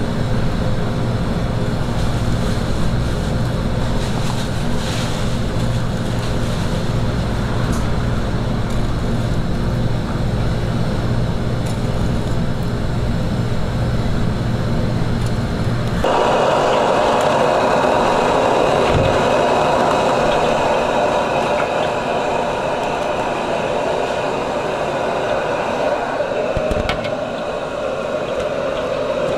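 Steady loud mechanical roar of kitchen equipment, like a running exhaust fan and gas burner. About halfway through the low rumble cuts off abruptly and a higher, hissing roar carries on, with a soft thump near the end.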